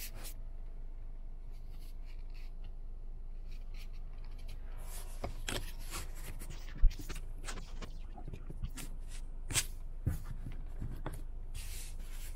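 Rubbing, scraping and clicking from a phone camera being handled and adjusted inside a car, over the car's steady low rumble. The handling sounds grow busier in the second half, and a sharp knock about midway is the loudest sound.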